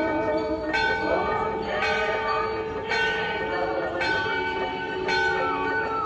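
Temple bell struck about once a second, each strike ringing on into the next, with a voice chanting over it.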